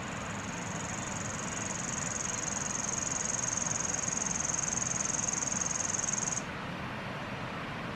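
Floodwater rushing and churning around fallen logs, a steady roar of water. Over it a high, thin, steady tone swells and then cuts off suddenly about six seconds in.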